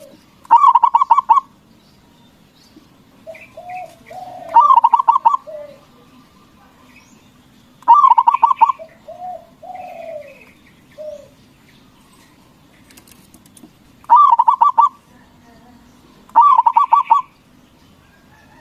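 Zebra dove (Javanese perkutut) singing its cooing song: five loud bursts of quick rolling coos about a second each, with softer falling coos between some of them.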